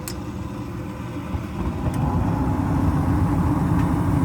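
Furnace blower motor spinning up: a low steady hum that builds about two seconds in and then holds, with no thumping yet.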